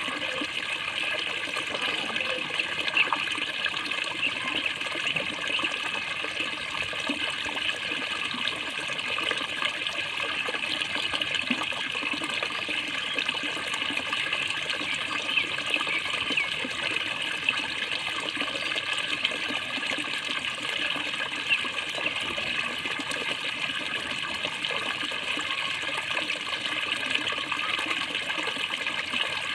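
Water gurgling steadily and without a break, with many small bubbling flickers.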